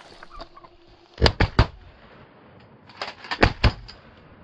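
Shotguns fired at passing ducks: several sharp blasts in two quick clusters, about two seconds apart, from more than one gun.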